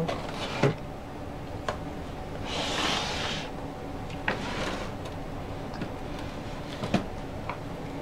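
Handling noises while oil paints are picked up and mixed: several light clicks and knocks, and about three seconds in a scraping rustle that lasts about a second, over a steady faint hum.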